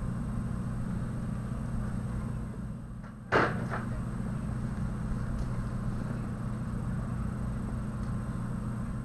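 Steady low hum and hiss of background room noise, with one brief sharp noise a little over three seconds in.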